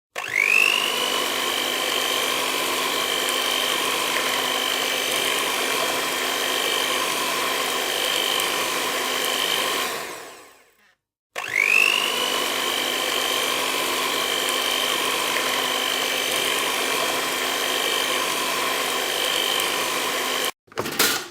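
Electric motor of a small kitchen appliance such as a blender, spinning up with a quick rising whine and running steadily for about ten seconds, then winding down to a stop. It starts again, runs steadily and cuts off suddenly near the end, followed by a brief separate sound.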